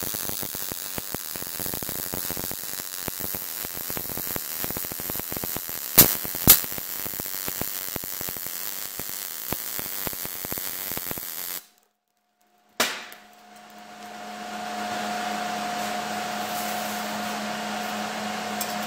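MIG welding arc crackling fast and steadily as .030 ER70S-6 wire feeds into 14-gauge galvanized steel under C-25 shielding gas, with two louder pops about six seconds in. This is the slower pass that gives full penetration through to the back of the joint. The arc stops abruptly about two-thirds of the way through, leaving a steady hum.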